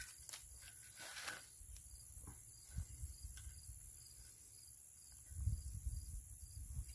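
Faint scraping and clicking of a knife shaving tinder from a pine board, with a low rumble of rustling about five and a half seconds in.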